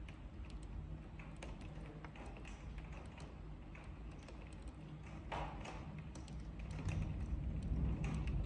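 Faint, irregular tapping clicks over a steady low hum, with a brief rustling burst about five seconds in.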